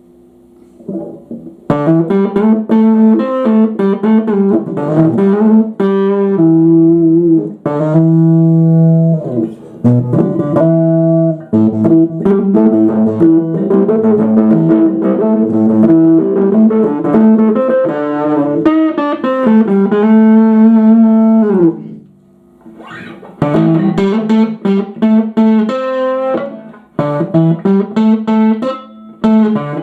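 Aria STG series electric guitar played through an amplifier with its tone control turned right down: picked notes and chords, with a short break about two-thirds of the way through before the playing resumes.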